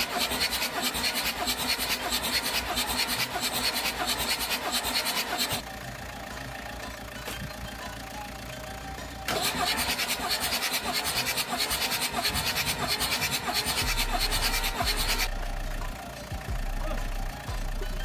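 Mercedes-Benz W124 300D six-cylinder diesel cranking over on its starter with a compression gauge in one glow-plug hole, in two rhythmic bursts of about five and six seconds with a pause between. This is a compression test on a worn engine whose readings are low, 16 to 18.5 bar.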